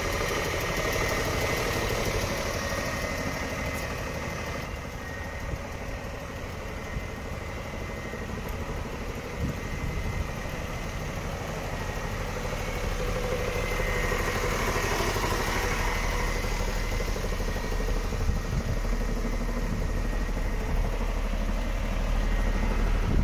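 Renault D 240 truck's diesel engine idling steadily.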